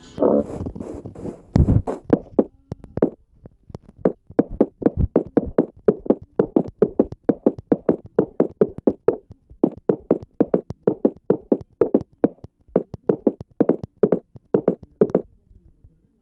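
A rapid, slightly uneven series of short knocks or taps, about four or five a second. There is a brief pause a few seconds in, and the knocks stop about a second before the end.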